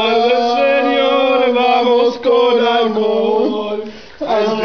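Male voices chanting in long held notes, in the manner of a sung liturgical response. There are two drawn-out phrases with a short break about two seconds in, then a brief drop just before a new phrase starts near the end.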